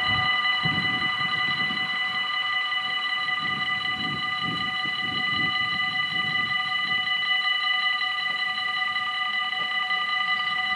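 Dutch level-crossing warning bell ringing steadily while the crossing is closed and its red lights flash. An uneven low rumble runs under it, strongest in the first half.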